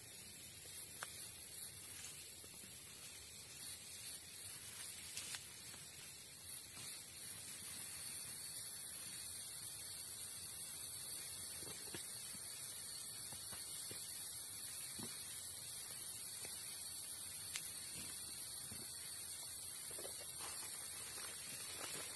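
Steady high-pitched drone of a forest insect chorus, growing louder about eight seconds in, with a few faint rustles and knocks of camping gear being handled.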